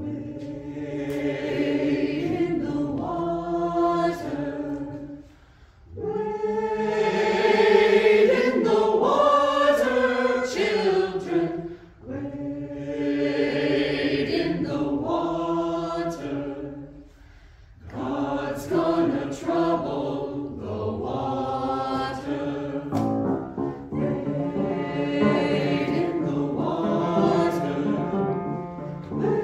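Church choir singing in long held phrases, with brief breaths between phrases about every six seconds.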